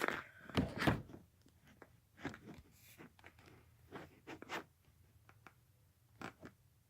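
Handling noise from a phone being set down and propped up: two heavy bumps about half a second to a second in, then scattered light knocks, scrapes and rustles as it is shifted into place.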